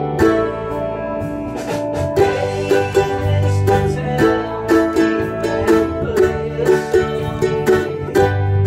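An 8-string ukulele, its paired strings tuned in octaves, strummed rhythmically along with a folk-rock backing track that carries a bass line.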